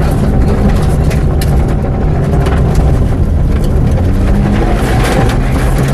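Mitsubishi Lancer Evolution VI rally car's turbocharged four-cylinder engine running at speed, heard loud from inside the cabin over tyre and road noise, with scattered sharp clicks.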